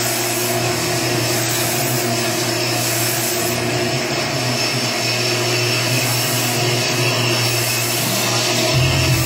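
Cylinder honing machine running steadily as it hones an engine block: a constant motor whir and hum, with a lower hum swelling slightly near the end.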